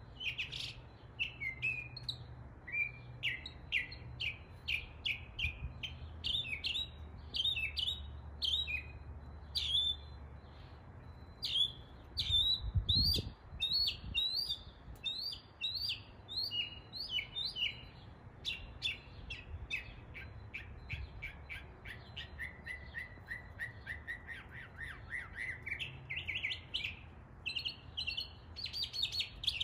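Northern mockingbird singing a long string of short, varied phrases that mimic other birds' songs and calls, each repeated several times before it switches to the next. In the later part a fast series of notes dips lower in pitch and climbs back up. A brief low thud comes near the middle.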